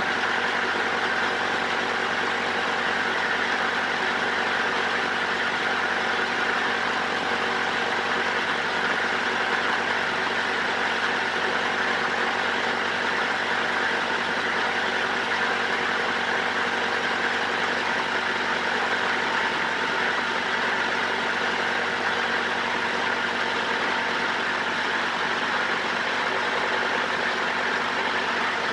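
A motor running at a steady speed: an even, unchanging drone with several steady hum tones under a layer of noise.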